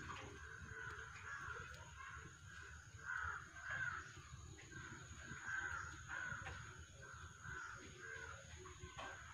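Crows cawing again and again, faintly, over a low steady rumble.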